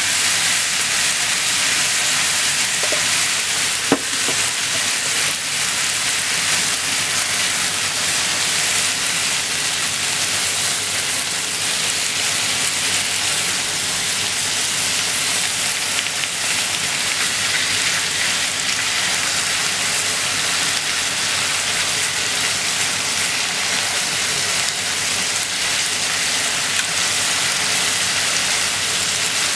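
Pork, cabbage and bean sprouts sizzling steadily in a frying pan as they are stir-fried with chopsticks, with one sharp click about four seconds in.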